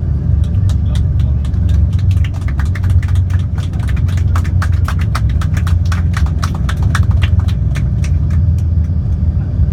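Steady low cabin rumble of an Embraer 145 regional jet rolling on the ground after landing, with a rapid, irregular clatter of sharp clicks, several a second, that starts about half a second in and dies away near the end.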